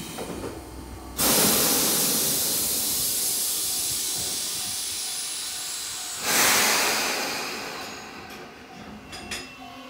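Compressed air hissing out of a Tobu 20400 series electric train standing at the platform as its doors shut: a sudden loud release about a second in that slowly fades, then a second shorter burst about six seconds in.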